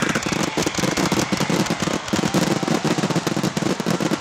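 Fireworks going off in a dense, continuous barrage of rapid bangs and crackles, the many shells of a finale firing at once.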